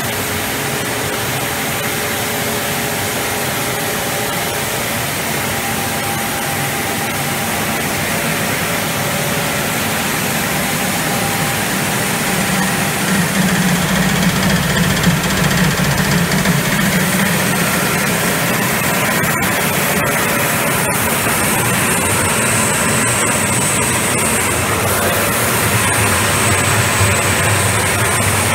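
Chocolate processing machinery running: a steady mechanical drone of motors, the screw conveyor and the mixer. It shifts lower about 12 seconds in, and a high thin whine joins it about 22 seconds in.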